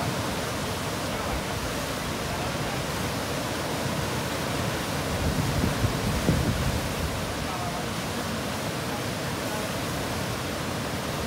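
Steady rush of whitewater from a standing river wave, with a brief louder low rumble about halfway through.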